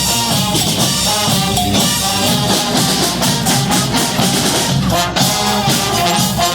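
Brass band playing live: horns holding and moving between notes over a steady beat of drums and cymbals, with a brief break in the playing about five seconds in.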